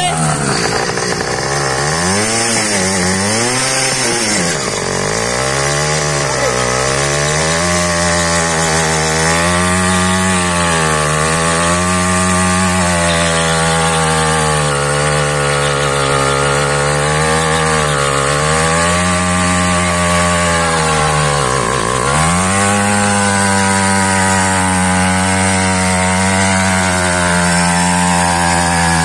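Motorized bicycle's small two-stroke engine held at high revs for a burnout, spinning the rear tyre on asphalt while the bike is held in place. The revs rise and fall about every two seconds, dip sharply once near the end, then hold high and steady.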